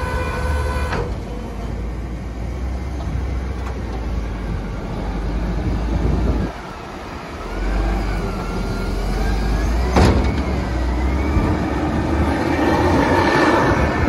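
Diesel engine of a Volvo L110H wheel loader running under load as it drives over a maize silage clamp, pushing and compacting the chopped maize, with a wavering whine in the middle, a sharp clunk about ten seconds in, and the engine louder near the end.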